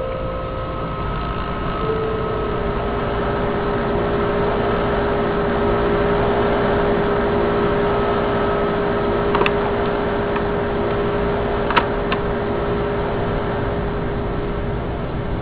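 Telephone line interference: a steady hiss and hum with a held tone, broken by a couple of faint clicks.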